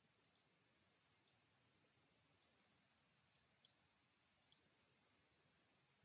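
Faint computer mouse clicks, about one a second, some in quick pairs, over near silence.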